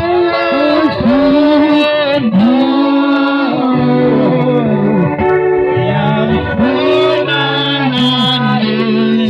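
Slow worship music: a voice sings long, sliding notes over instrumental accompaniment, with a low held note coming in about four seconds in.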